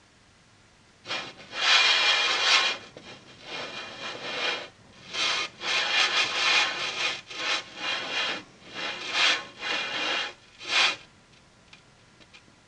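Rough rubbing or scraping noise in a run of irregular strokes, each about a second or shorter, starting about a second in and stopping about eleven seconds in.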